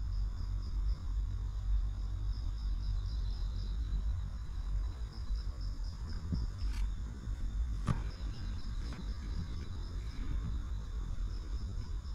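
Insects chirping: short trains of rapid high chirps, about five a second, recurring every couple of seconds over a steady high trill, with a low rumble underneath and a sharp knock about eight seconds in.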